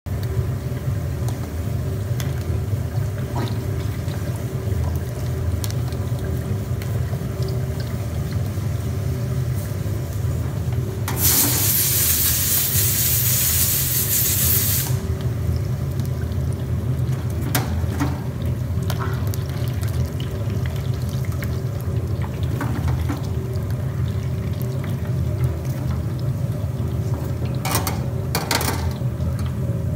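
Samosas deep-frying in a wok of hot oil, a steady sizzling and bubbling over a constant low hum. A much louder hiss runs for about four seconds near the middle, and a few sharp clinks come near the end.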